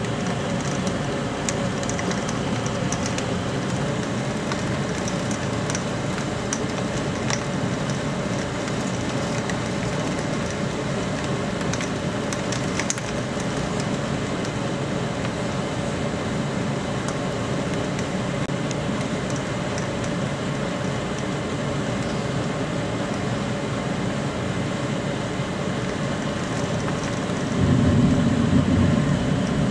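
Steady storm noise of wind and rain against a window, with scattered faint taps of drops. A louder low rumble comes in for about two seconds near the end.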